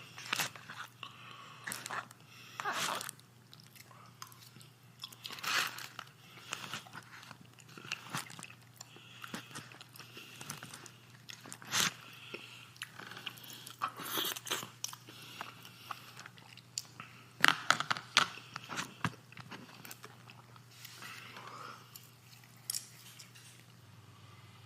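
Close-up chewing and crunching of crunchy food, with irregular bites and mouth clicks, over a steady low hum.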